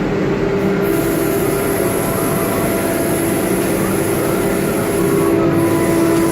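BCAM CNC router running: steady machine noise with several constant tones, and a high whine that comes in about a second in and drops out briefly near the end.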